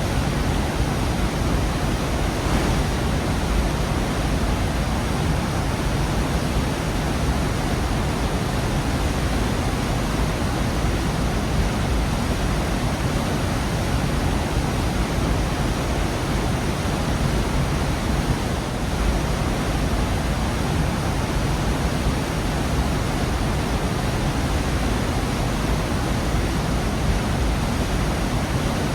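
Waterfall in a rocky gorge, a steady loud rush of falling water.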